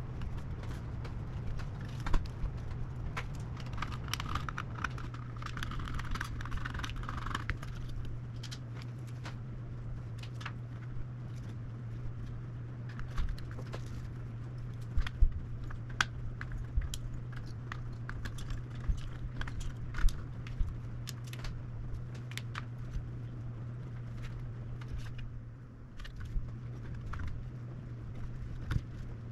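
Irregular clicks and small metallic clinks of tools, screws and parts being handled while a graphics card is taken apart, over a steady low hum.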